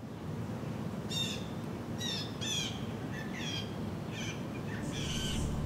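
Birds chirping: a series of short, sharp calls, about one every half second to a second, over a steady low outdoor rumble.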